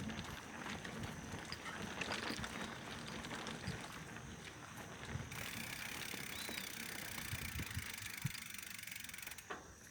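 Mountain bike rolling along a dirt trail: tyres running over the ground, with scattered knocks and rattles from the bike. About halfway through a steady high hiss joins in, and it drops away shortly before the end.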